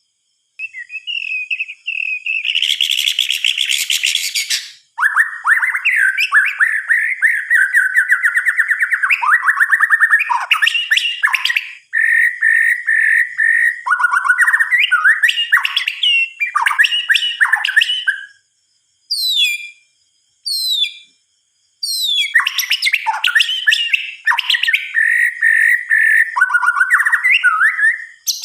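White-rumped shama singing: a long, varied run of loud whistled phrases, trills and harsh rattling notes, broken by short pauses. Around twenty seconds in come two brief, quick downward-sweeping notes.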